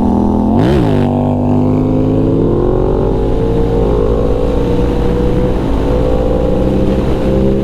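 Yamaha MT-series motorcycle engine pulling under way, with a quick rise and fall in revs about a second in, then pitch climbing slowly as the bike accelerates before holding steady.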